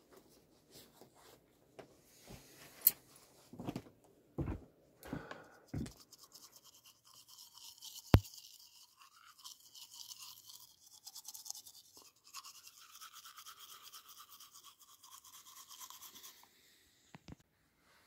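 Teeth being brushed, a steady rhythmic scrubbing that starts about six seconds in and lasts about ten seconds. Before it come a few knocks and rustles of handling, and there is a single sharp click about eight seconds in.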